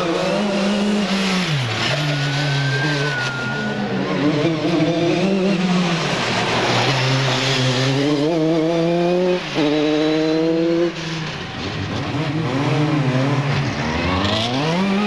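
Single-seater race car engines revving hard, rising and falling in pitch over and over as the cars accelerate and brake through the cones.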